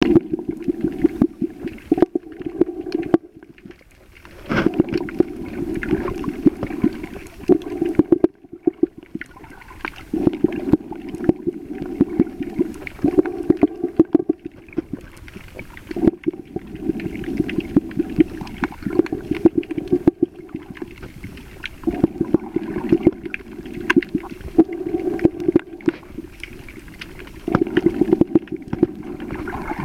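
Water heard underwater or at the surface in shallow reef water: an irregular surging and sloshing, with many sharp clicks and crackles throughout and brief lulls about 4 and 8 seconds in.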